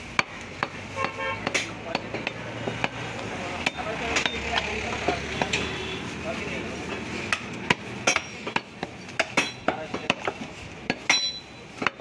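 Butcher's knife and cleaver knocking against a wooden log chopping block as raw beef is cut, a string of sharp, irregular knocks that come thicker near the end, with voices chattering in the background.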